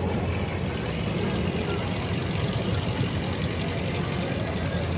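Purse-seine fishing boat's engine running with a steady low hum.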